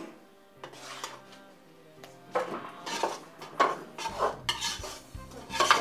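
A metal slotted ladle scraping and knocking against a metal kadai as thick stinging-nettle saag is stirred, in a series of short, irregular scrapes. Soft instrumental music plays underneath, fuller from about four seconds in.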